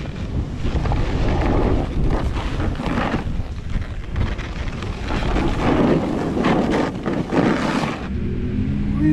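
Wind rushing over the camera's microphone while riding down a snowy piste, with the scrape of edges carving through the snow swelling up several times. The noise eases near the end.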